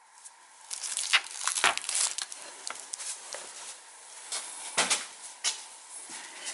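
Rustling and scraping handling noise with a few short knocks, about two seconds and five seconds in, as stones and the camera are handled.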